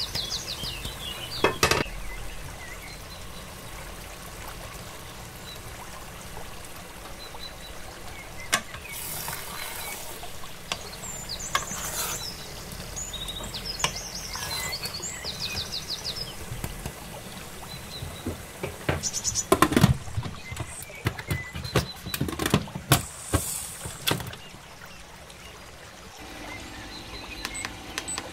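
A wooden spoon stirs minced lamb and potatoes in an electric pressure cooker's metal inner pot, with scrapes and knocks and a run of louder clatters about two-thirds of the way through. Birds chirp in the background at times.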